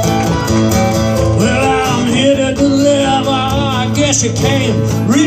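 Live acoustic band playing a country-style song: strummed acoustic guitars with a wavering melody line over them.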